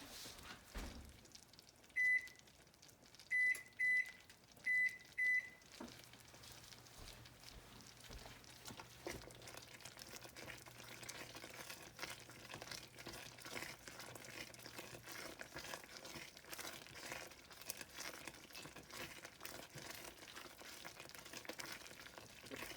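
Five short high beeps, the buttons of a digital kitchen timer being set, in the first few seconds. Then butter and brown sugar boil faintly in a saucepan, with a low hum for several seconds.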